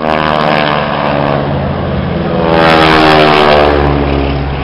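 Propeller-driven piston engines of two display biplanes flying past one after the other. Each engine drone falls in pitch as its plane goes by, and the second pass is the louder, peaking about three seconds in.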